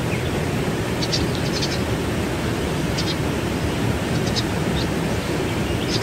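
Steady rush of water from a waterfall, a constant heavy hiss strongest in the low range, with a few short high chirps scattered through it.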